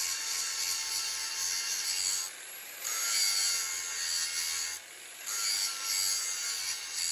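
Abrasive grinding or sanding of a steel axe eye drift: a steady hissing rasp that breaks off briefly twice as the work is lifted away.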